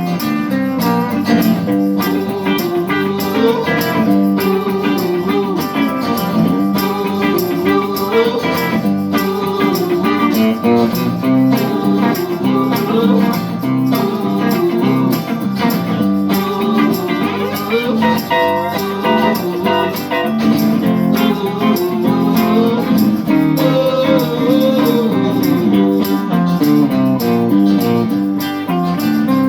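Live band playing an instrumental break, a lead guitar line with bending notes over guitars and a steady band backing.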